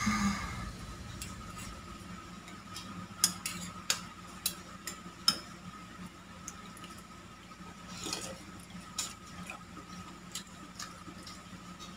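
Metal spoon and fork clinking and scraping against a ceramic soup bowl, with several sharp clinks a few seconds in and more scattered ones later, over a faint steady hum.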